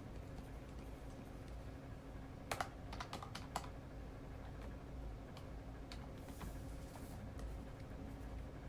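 Keys tapped in a quick run of about half a dozen clicks a few seconds in, followed by a few scattered taps, over a steady low room hum.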